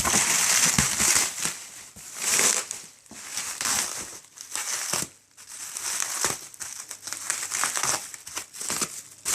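Cardboard box and packaging being handled and pulled open: irregular bursts of rustling and crinkling with small scrapes and clicks.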